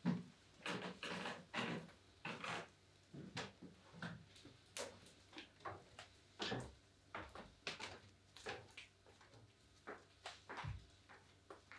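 Quiet footsteps and knocks on wooden stairs and floorboards, irregular, about one or two a second, with a louder knock at the very start.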